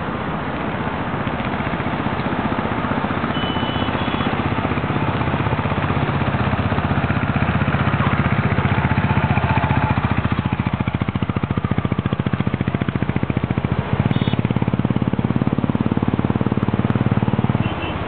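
A vehicle engine running steadily with a low, even hum that builds in loudness through the middle. It dips briefly about fourteen seconds in and eases off just before the end.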